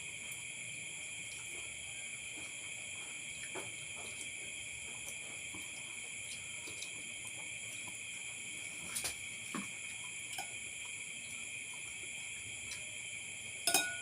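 Steady, continuous chirring of crickets, with a few light clicks scattered through and a louder click near the end.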